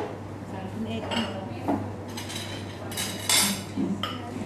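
Wooden pestle knocking and scraping in a clay mortar as som tam (papaya salad) is pounded and tossed: about half a dozen irregular knocks and clatters.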